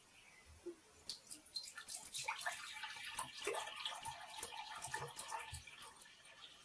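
Water running into a measuring jug, splashing and trickling, as about a liter is measured out; it starts about a second in and tails off near the end.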